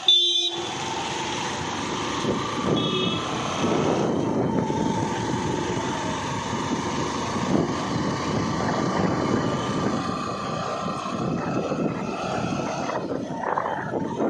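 A motor vehicle running steadily, with a faint hum over a steady rush of noise.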